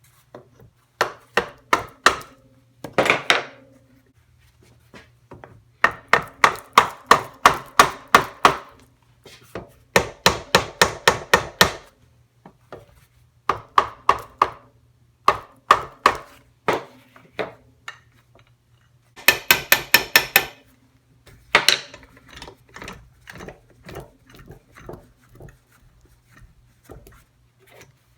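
Runs of sharp, rapid knocks, about five a second in bursts of one to three seconds, from tool work on a Suzuki RM125 engine's crankcase as the two halves are worked apart. A faint steady hum sits underneath.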